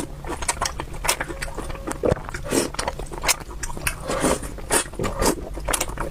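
Close-miked eating sounds: chewing and mouth noises, a dense run of short clicks and smacks.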